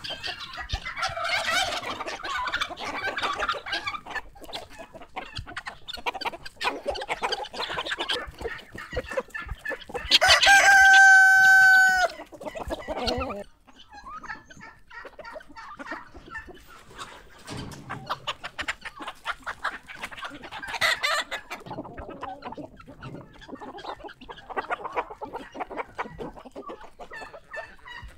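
Chickens clucking steadily, with a rooster crowing once, loud and held for about two seconds, about ten seconds in.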